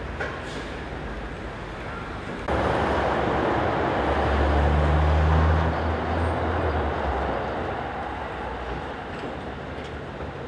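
Toden Arakawa streetcar running on its rails, a loud rumbling of wheels on track. Under the rumble a low motor hum rises for a few seconds in the middle. The sound comes in abruptly a few seconds in and eases off toward the end.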